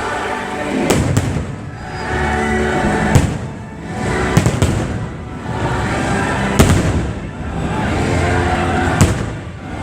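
Fireworks going off: about seven sharp bangs spread over the few seconds, some in quick pairs, over loud show music.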